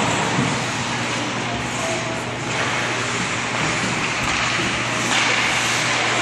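Steady noise of an ice hockey game in progress in a rink, with no single clear event, rising slightly about five seconds in.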